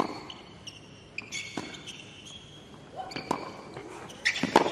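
Tennis rally on a hard court: a serve and then racket strikes on the ball about every second and a half, with high shoe squeaks on the court between the shots.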